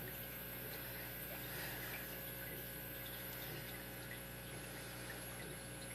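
Steady low electrical hum with faint room noise; no distinct handling clicks stand out.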